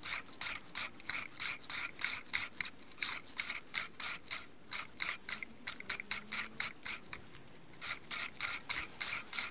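Great States 204-14 14-inch four-blade hand reel mower cutting wet grass as it is pushed along. The reel's blades give a fast, even run of short scraping snips, about four or five a second, with a brief lull about seven seconds in.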